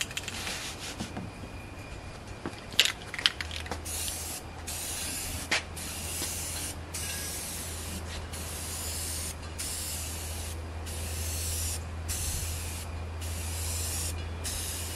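Aerosol spray paint can spraying in a series of short hissing bursts, about ten of them with brief pauses between, starting about four seconds in; a few sharp clicks come before the spraying, and a steady low hum runs under it.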